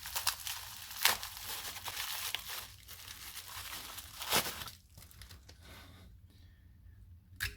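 Packaging wrapping crinkling and tearing as it is handled, with a few sharp clicks, then going much quieter about five seconds in, with one more sharp click near the end.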